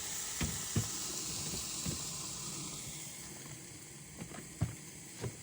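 Meat and chicken sizzling as they cook, a steady hiss that eases off partway through, with a few small knocks and clicks.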